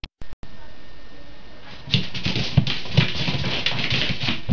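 A kitten's paws scrabbling and thumping on a hard floor as it chases and pounces at a spot of light, a busy irregular patter that starts about two seconds in after a steady hiss.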